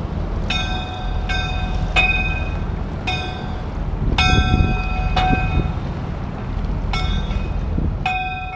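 A bell buoy's bell struck about eight times at uneven intervals, each ring hanging on, as the waves rock the buoy. A steady low rumble runs underneath.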